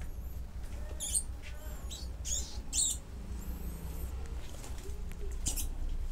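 Live feeder mice squeaking in short, high-pitched bursts, four in all, as they are seized and bitten by red tegus, over a steady low hum.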